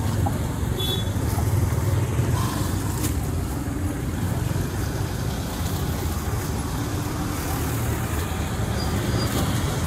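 Steady low rumble of passing road traffic in an outdoor street market, with a couple of faint clicks.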